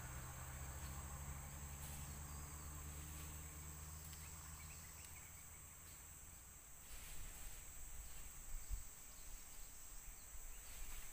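Steady high-pitched drone of insects such as crickets in the surrounding vegetation. From about seven seconds in there are faint irregular rustles and soft knocks.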